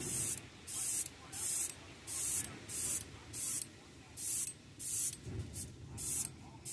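Airbrush spraying paint in short, regular bursts of hiss as the trigger is pulsed, about ten bursts with quiet gaps between.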